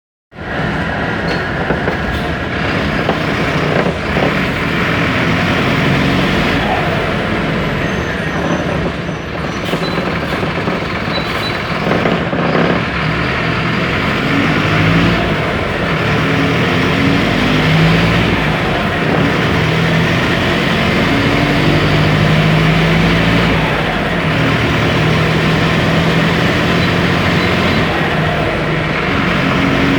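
Mercedes-Benz OF 1721 BlueTec 5 bus diesel engine running, its pitch rising and falling in short stretches under a steady, dense rushing noise.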